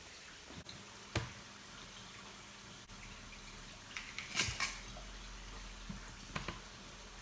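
A few scattered knocks and taps of a kitchen knife cutting a peeled kohlrabi on a cutting board, the busiest cluster about four seconds in.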